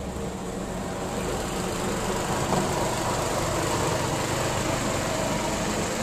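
Motor vehicle engines running in street traffic, growing louder over the first couple of seconds and then holding steady.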